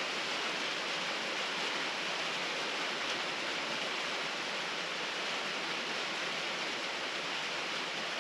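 Steady, even hiss with no distinct knocks or other events.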